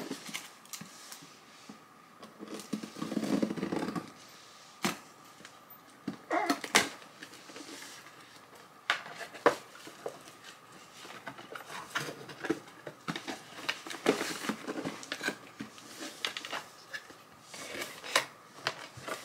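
A cardboard mailer box and paper being handled and opened: irregular rustling, crinkling and sharp taps of card and paper, with a longer rustle a few seconds in.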